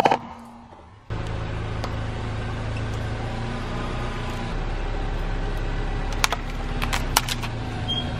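Car engine running steadily as a low hum while the car creeps forward, with a few sharp clicks near the end. A sharp crack right at the start fades out within about a second.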